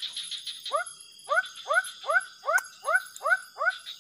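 An animal calling at night: a run of about eight short upward-sweeping calls, most of them coming about two and a half a second, over a steady high-pitched chorus of night creatures.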